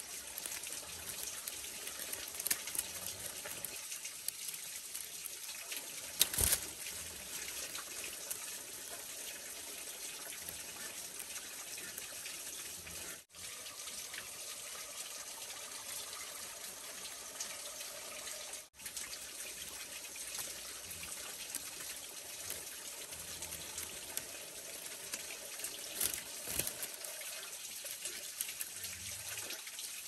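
Split bamboo strips clicking sharply a few times as they are woven by hand into a basket base, over a steady rushing hiss like running water. The sound cuts out briefly twice.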